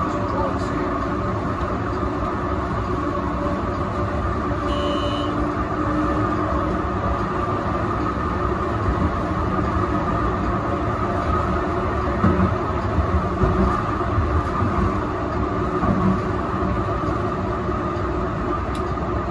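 Melbourne A2-class tram running along its track, heard from inside at the front of the tram: a steady rumble of wheels on rails and running gear, with a few louder bumps about two-thirds of the way through.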